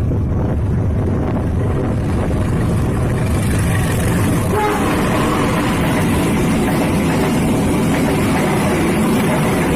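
Train running past: a loud, steady rumble and rattle. It is heaviest in the low end at first and turns more hissing and rattly about halfway through.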